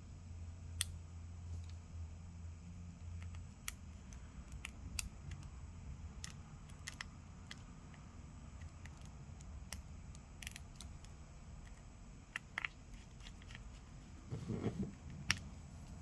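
Scattered small clicks and taps of precision screwdriver and tweezers work as tiny screws are fitted into a phone's bottom bracket, with a brief cluster of louder handling taps near the end.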